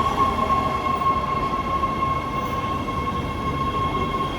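Los Angeles Metro Breda A650 subway train arriving at the platform, its cars rumbling with a steady high-pitched whine over the top.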